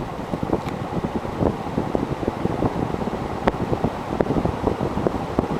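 Casablanca Zephyr ceiling fan with an Emerson K63 motor running on high: a steady rush of air from the blades, made uneven by many small gusts and knocks.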